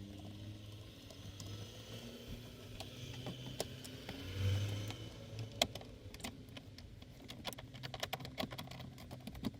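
Small clicks and taps of a screwdriver and screws being worked out of the plastic trim around a car instrument cluster. The clicks come thicker in the second half, over a faint low hum.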